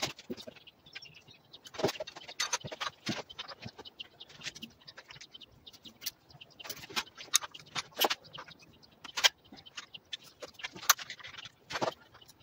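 Irregular light metallic clinks and scrapes of hand tools, a screwdriver and a small wrench, working on the rocker arms and valve gear of an engine being assembled.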